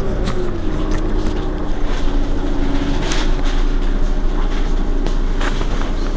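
Mercedes-Benz Citaro city bus's diesel engine idling with a steady low rumble. A whine, falling in pitch, settles in the first second and fades out about three seconds in.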